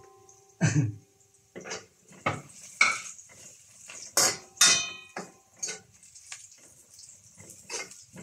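Metal spatula clinking and scraping against a stainless steel wok while stirring sliced onion. The strokes are irregular, about a dozen in all, and a few ring briefly.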